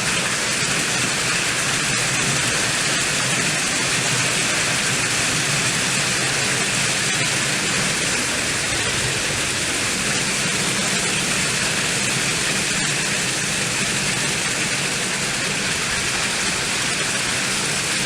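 Heavy rain and storm wind of a summer thunderstorm, a loud, steady, even noise.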